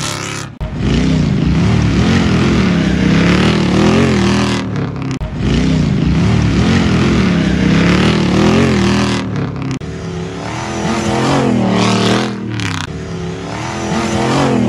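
Off-road 4x4 race vehicles' engines revving hard as they launch and power through mud, the engine pitch rising and falling over and over with the wheelspin. Several vehicles in turn, with abrupt breaks about half a second in, around five seconds, and near ten and twelve seconds.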